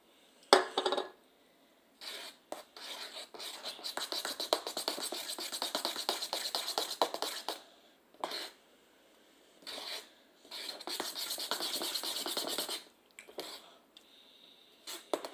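A metal spoon stirring and scraping quickly inside a stainless steel tumbler, mixing ice cream into root beer, in two long spells of rapid strokes. A brief loud knock comes about half a second in.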